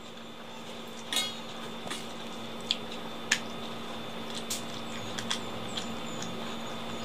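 Eating with the fingers from a steel plate: scattered light clicks and clinks, about eight of them, over a steady low hum.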